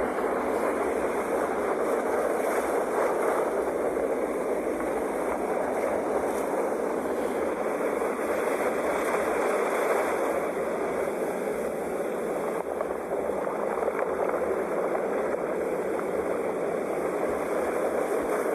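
Sea surf: a steady, unbroken rushing wash of waves, with no single wave crash standing out and only slight swells in level.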